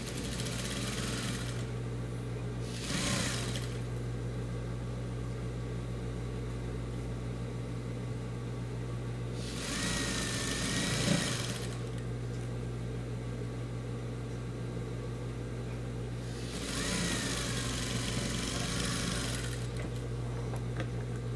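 Industrial sewing machine stitching through denim and cotton strips in four runs, two short ones and two of about three seconds, over the steady hum of its motor.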